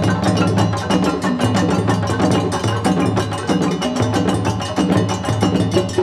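West African percussion ensemble playing: djembes struck by hand together with stick-played dunun drums and a balafon, in a dense, steady rhythm.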